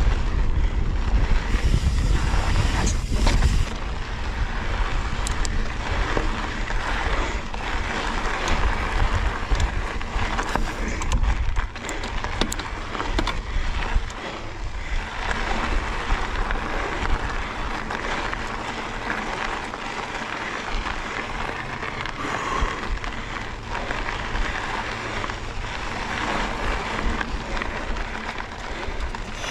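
Mountain bike being ridden on a dirt and rock trail: wind buffeting the microphone, loudest in the first few seconds, over the steady noise of tyres rolling, with scattered knocks and rattles from the bike.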